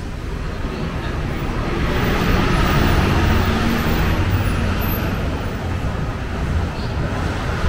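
Low, dense vehicle rumble that swells about two seconds in and eases after about five seconds, like a heavy vehicle or train going past.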